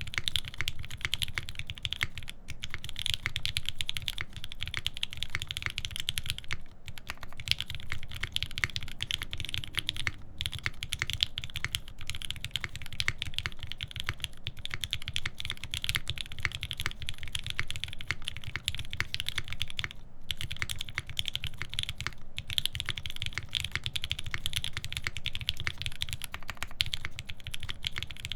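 Continuous fast typing on an UNIKORN R2.1 custom mechanical keyboard with lubed Alpaca linear switches, an FR-4 plate and GMK keycaps: a dense stream of keystrokes with a few short pauses.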